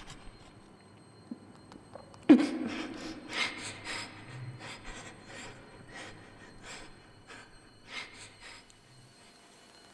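A sudden heavy hit about two seconds in, with a low ringing tone that dies away over about a second. It is followed by a run of short, irregular mouth and breath sounds that fade out near the end.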